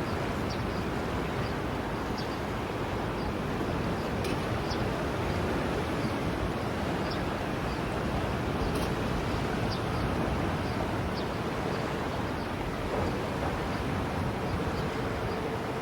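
Steady rushing noise of sea surf, mixed with wind on the microphone, holding an even level without distinct wave swells. Faint high clicks are scattered through it.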